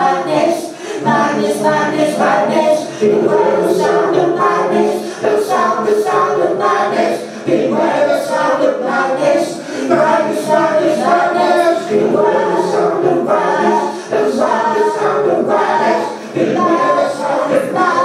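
Several voices singing and chanting together in layers, with no instruments, over a regular beat of sharp clicks.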